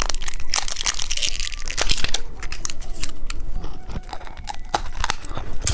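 Plastic candy wrapper crinkling and tearing as a knife-shaped candy is taken down and unwrapped, a dense run of irregular crackles.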